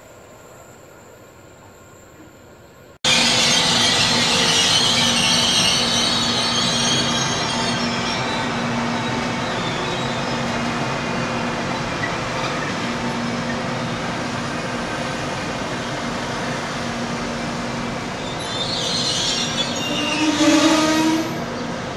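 Trenitalia D.445 diesel locomotive passing with an E.464 electric locomotive in tow: the diesel engine's steady drone under a loud hiss of wheel and rail noise, with wheel squeal. It begins abruptly about three seconds in, after a faint background hum.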